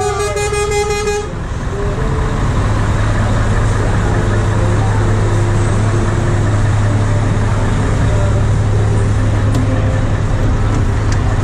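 A truck horn sounds one steady note and cuts off about a second in. A truck's diesel engine then runs on with a steady low drone, with fainter short horn toots around it.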